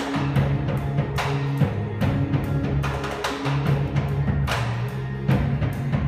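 Live instrumental rock band playing: electric guitars and keyboard over low held notes that shift every second or so, with two drummers striking drums in a steady beat of about two to three strokes a second.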